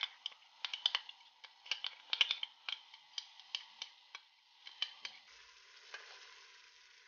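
Metal spoon scraping and tapping thick spice paste out of a bowl into a pot of frying onions: an irregular run of light clicks, then a faint sizzle from about five seconds in as the paste sits in the hot oil.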